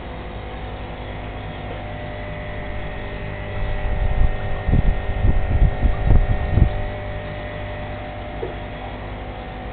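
Steady hum of aquarium equipment, an air pump driving bubbling air curtains, with several steady tones under a hiss. Between about four and seven seconds in comes a run of low rumbling thumps.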